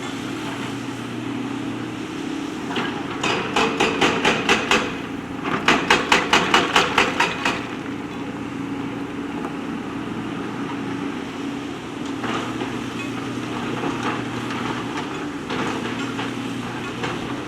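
JCB backhoe loader's diesel engine running steadily under work, with two bursts of rapid metallic knocking, about five or six strikes a second, a few seconds in.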